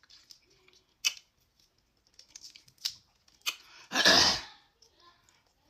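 Close-up eating sounds of crab being cracked and picked apart: a few sharp shell cracks and small clicking ticks, with wet mouth smacking. About four seconds in comes one loud, noisy, rushing sound lasting about half a second.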